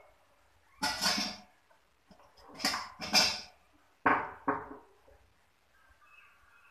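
Metal kitchenware being handled: three short scraping rasps, then two sharp metallic clanks about half a second apart.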